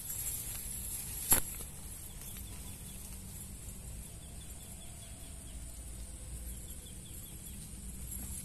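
Outdoor ambience with a steady high insect buzz, and one sharp click about a second in.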